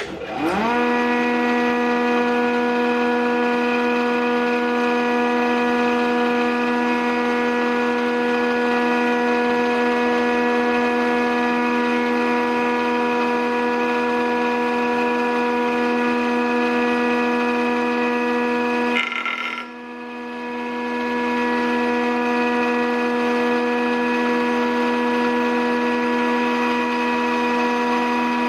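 JET JPM-13 13-inch planer/molder switched on: its motor and cutterhead spin up with a quick rising whine and settle into a steady, loud humming whine. About nineteen seconds in, a brief scratchy burst and a dip in the hum interrupt it, and then it builds back up to speed.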